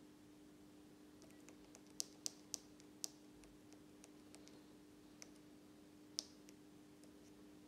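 Rapid clicks of a Bosch Kiox e-bike handlebar remote's button being pressed over and over, about two dozen presses with a few louder than the rest, each press stepping the wheel-circumference setting down by one. A faint steady hum underneath.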